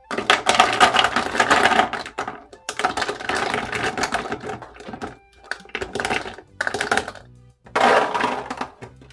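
Soaked soybeans dropped by the handful into a plastic PET bottle, rattling and clicking against the thin plastic in four runs of clatter with short pauses between, over background music.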